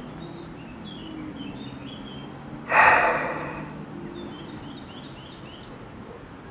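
A man's loud sigh, about three seconds in, lasting about a second. Small birds chirp faintly now and then in the background.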